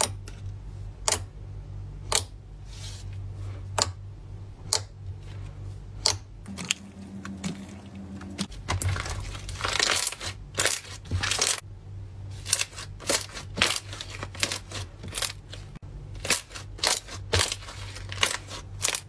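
Clear blue slime being pressed and squeezed by hand, giving sharp wet pops and clicks, about one a second at first, then a stretch of denser squelching, then quicker pops near the end.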